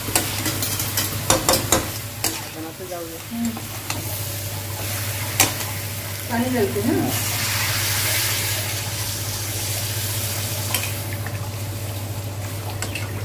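Spatula stirring and scraping masala-coated cauliflower and potato as they fry and sizzle in a steel kadai, with sharp knocks of the spatula on the pan in the first few seconds. About seven seconds in, water goes into the hot pan and the sizzle swells into a steady hiss.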